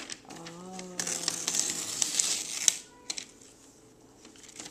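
Wrapping paper crinkling and rustling for about two seconds, with small crackles, then dying down. A brief low hum from a voice comes just before it.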